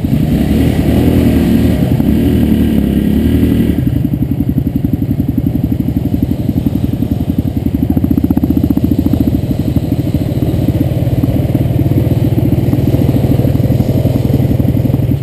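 Yamaha 125 dirt bike's single-cylinder engine running at low, steady revs close to the microphone as the bike rolls slowly. A wavering higher note rides over it for a few seconds near the start.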